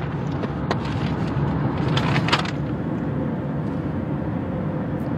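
Steady low rumble of a moving car heard from inside the cabin, with a short rustle of a paper sheet being handled about two seconds in.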